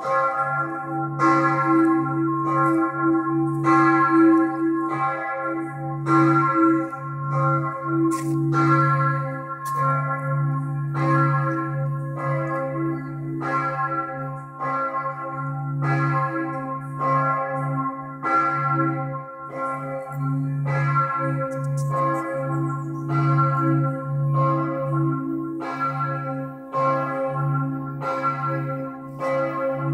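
Several church bells of St. Emmeram's Cathedral ringing together in a continuous peal for the 6 p.m. evening ringing. Strokes come about once a second over a steady, deep ringing hum.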